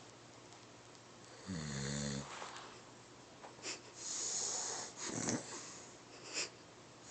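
A sleeping person snoring. A low buzzing snore comes about a second and a half in and lasts under a second, followed by a long hissing breath around four seconds and a shorter, rougher snore a second later.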